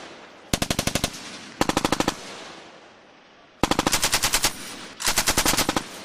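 Belt-fed machine gun firing four short bursts of rapid automatic fire, roughly a dozen rounds a second. The first two bursts are brief; the last two run close to a second each. Each burst is followed by a short echo.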